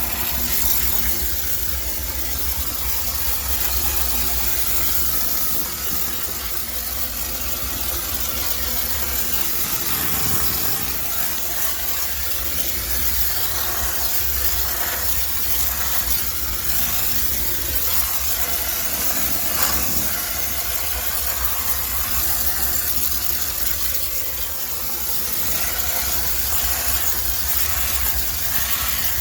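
High-pressure steam cleaner hissing steadily as it steam-sterilises a washing machine, with a low hum underneath.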